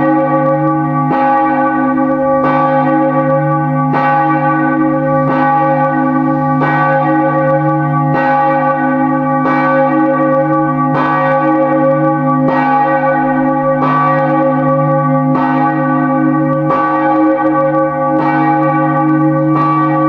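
Church bell tolling steadily, about one strike every 1.3 seconds, each stroke ringing on into the next.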